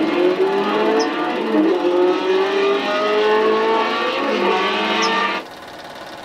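2-litre open two-seater sports racing car engine revving hard under acceleration, its pitch climbing in long sweeps through the gears. A little over five seconds in the sound cuts off suddenly to a much lower level.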